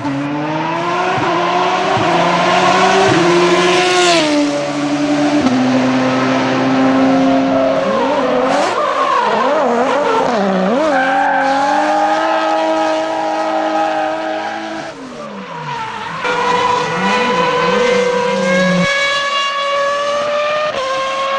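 Car engine sound effect revving, its pitch climbing and then dropping back several times as if through gear changes, with a wavering squeal in the middle and another near the end.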